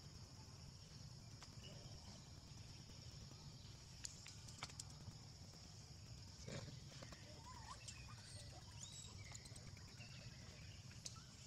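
Near silence: faint outdoor ambience with a steady high hiss, a few soft clicks and some faint short chirps.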